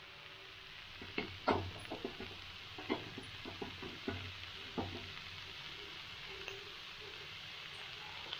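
Shredded carrot, beetroot and capsicum sizzling as they fry in a steel kadai, with a steel spatula knocking and scraping against the pan about a dozen times in the first five seconds, then a steady sizzle.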